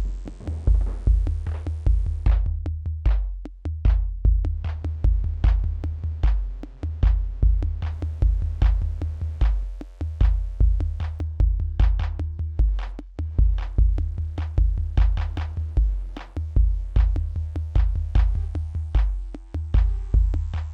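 Electronic jam from Korg Volca drum machine and synthesizers with a Korg Monotribe: a steady, loud low kick-drum pattern under short clicky percussion and synth bass tones, with a rising filter sweep in the first two seconds and the kick dropping out briefly a few times.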